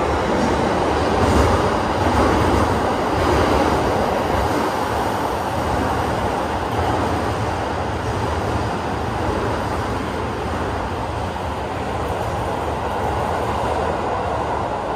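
Toei Asakusa Line subway train running alongside the platform in an underground station: a steady rumble and wheel noise, loudest about a second and a half in and then easing slightly.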